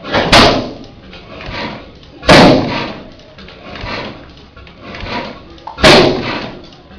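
35 hp Columbus Camstopper hit-and-miss engine running, firing with a sharp, loud bang three times, a couple of seconds apart, with softer coasting strokes in between.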